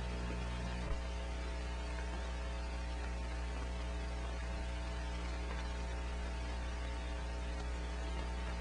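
Steady electrical mains hum with its overtones, over a layer of hiss, with one faint click about a second in.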